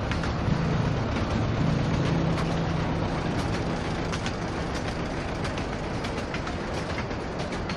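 A small tourist toy train, an engine pulling open passenger carriages on narrow rails, running past close by: a steady rumble with a low hum in the first few seconds and scattered clicks and rattles from the carriages and wheels on the track.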